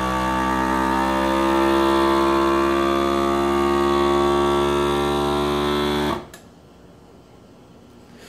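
FoodSaver FM2000 vacuum sealer's pump running steadily, drawing the air out of a mason jar through the hose and jar attachment. It cuts off suddenly about six seconds in, once the jar is evacuated and sealed.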